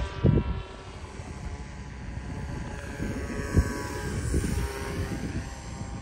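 Pusher electric motor and propeller of a homemade FPV fixed-wing plane, heard faintly as a steady whine that fades over the first couple of seconds, over low wind rumble on the microphone. A thump right at the start and a short knock about three and a half seconds in.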